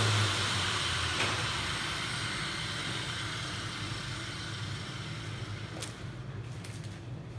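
A steady hiss that slowly fades, with a faint click about a second in and another near six seconds.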